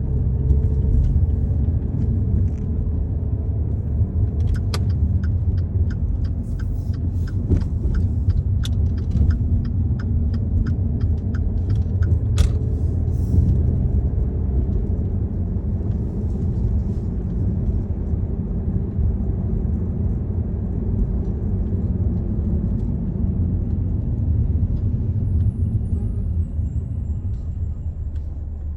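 A car driving, heard from inside the cabin: a steady low road and engine rumble. In the first half there is a run of sharp clicks lasting several seconds.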